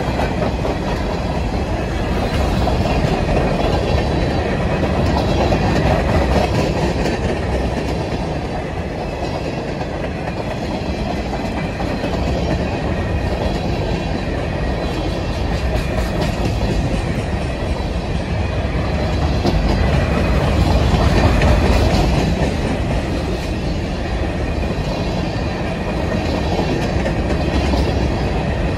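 Covered hopper cars of a CSX grain train rolling past close by: a steady rumble with the wheels clacking over the rail joints, swelling and easing a little as the cars go by.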